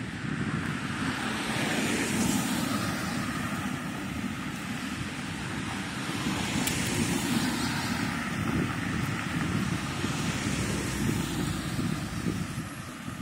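City street traffic: vehicles passing by, a steady rushing noise with a low rumble that swells about two seconds in and again around seven seconds.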